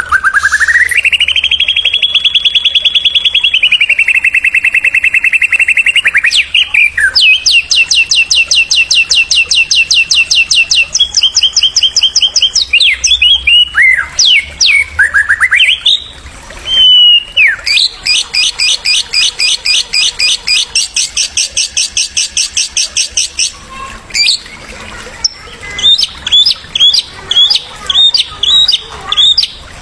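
Songbird song in long, very fast machine-gun trills. It opens with a rising whistle and has swooping notes about halfway through. A run of separate sharp chipping notes comes near the end.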